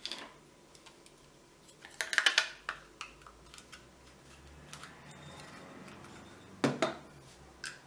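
Grip panels being fitted to a SIG Sauer P226 pistol frame by hand: small hard clicks and clacks of the panel against the metal frame, with a sharp cluster about two seconds in, faint rubbing in the middle and a pair of knocks near the end.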